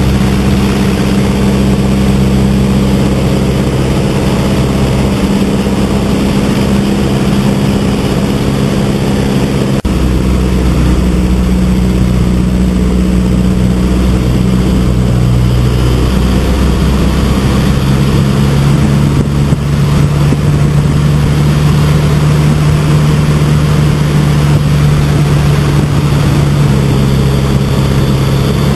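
Stampe SV.4 biplane's Renault four-cylinder inverted inline engine and propeller running in flight, heard from the open cockpit over steady wind rush. The engine note shifts about a third of the way in and drops lower a little past the middle as the throttle and attitude change through the manoeuvre.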